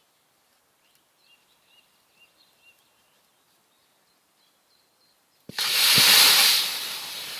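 Boiling oil dumped into a campfire flares up: a thump, then a sudden loud whooshing hiss that peaks within a second and slowly dies away. Faint bird chirps before it.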